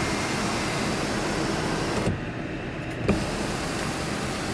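Electric motor of the panoramic sunroof's power sunshade whirring steadily as the shade slides along the roof track, with a small click about three seconds in.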